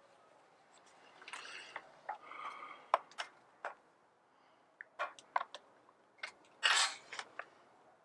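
Light clicks and short rattles from a Stihl MS 170 chainsaw's chain and side-mounted tensioner being worked by hand as the chain is tensioned on the bar, with a few sharper clicks spread through.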